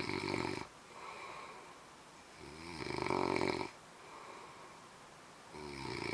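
A man snoring in his sleep while wearing a Kogolstop anti-snoring nasal device: three loud buzzing snores about three seconds apart, with quieter breathing between them. The snoring goes on despite the device.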